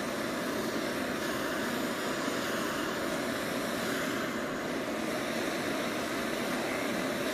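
Handheld pistol torch flame burning with a steady hiss, heating copper hot enough for dunked enamel to stick.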